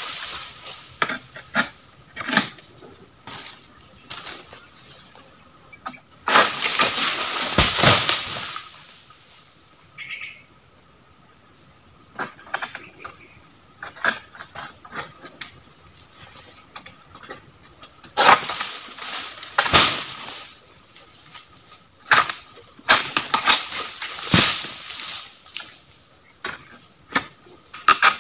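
A steady high-pitched insect drone runs throughout. Over it come scattered knocks and a few longer rustling bursts from an oil palm harvesting pole (egrek) working in the palm crown, cutting fronds or fruit bunches. The longest burst comes about six to eight seconds in.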